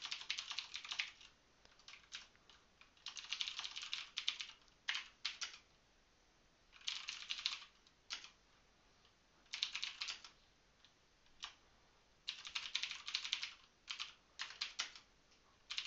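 Typing on a computer keyboard: short runs of rapid keystrokes separated by pauses of one to two seconds.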